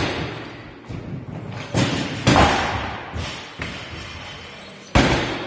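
Heavy thuds from a loaded 140 kg barbell lift on a gym platform as the bar is driven from behind the neck to overhead: three sharp hits with an echoing decay, about two seconds in, just after, and near the end.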